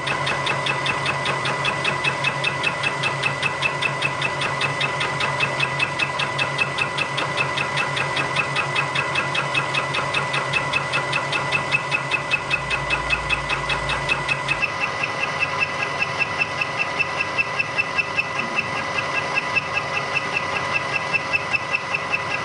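Bridgeport vertical milling machine fly cutting a flat face with a carbide-insert fly cutter: a steady whir of the spindle with a rapid, even rhythm of ticks as the insert strikes the metal. The tone of the cut shifts about fifteen seconds in.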